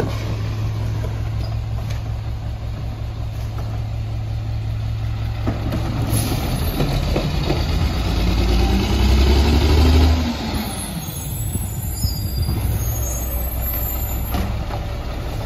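Mack MR McNeilus rear-loader garbage truck's diesel engine idling with a steady low rumble. About six seconds in it revs up as the truck pulls forward, peaks around ten seconds, then drops back to idle.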